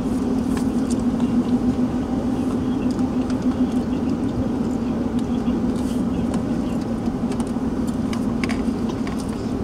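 Car driving on a wet road, heard from inside the cabin: a steady low engine and tyre drone with road hiss, and scattered light ticks.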